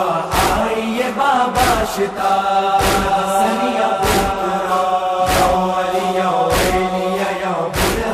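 Voices chanting an Urdu noha, a Shia mourning lament, in a slow, held line, kept in time by loud chest-beating (matam) strikes about every 1.2 seconds.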